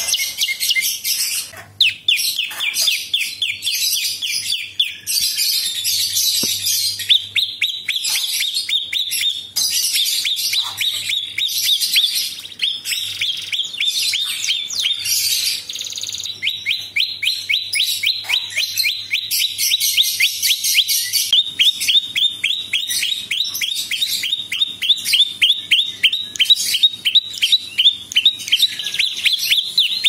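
Small caged songbird singing a long, rapid series of repeated high chipping notes, several a second, broken by bursts of higher buzzy trills.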